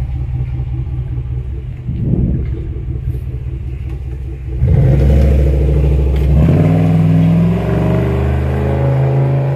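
Buick sedan's dual exhaust idling, with one short rev about two seconds in. About halfway through it gets louder as the car pulls away, and the pitch climbs as it accelerates.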